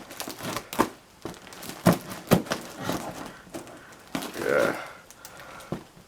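Cardboard box being opened by hand: scattered short knocks and taps of cardboard, with a longer rustling scrape about four seconds in.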